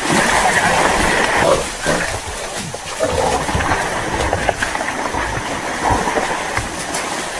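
Hunting dogs and a caught wild boar scuffling in a muddy creek: a noisy tangle of animal sounds with splashing and brush crashing.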